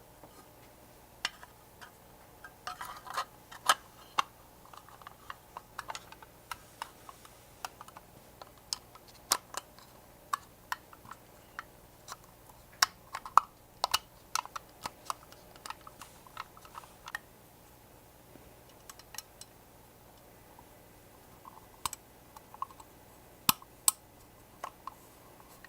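Irregular hard clicks and light taps of small metal parts and tools being handled, with bunches of quick clicks a few seconds in and again about halfway through, and a quieter gap later on.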